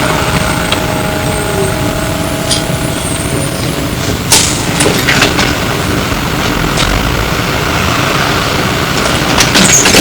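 Running noise inside a Flyer E902 electric trolleybus on the move: a steady rumble with rattles, and a faint steady tone that fades out about four seconds in. Sharp clatters come about four seconds in and again near the end.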